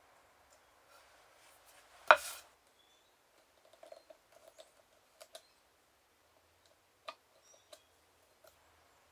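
Quiet bench handwork: one sharp knock about two seconds in that rings briefly, then scattered light clicks and taps as small brass pins are handled and pressed into a wooden book board.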